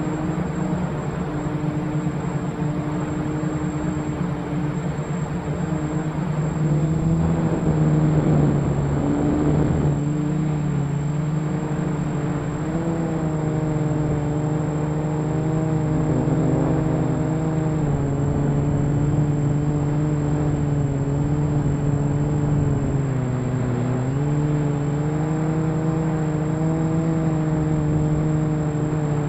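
ArduCopter quadcopter's electric motors and propellers whirring, heard from the onboard camera, the pitch stepping up and down every few seconds as the motor speeds change. There is a louder rushing stretch about a quarter of the way in, and a thin high whine that holds steady throughout.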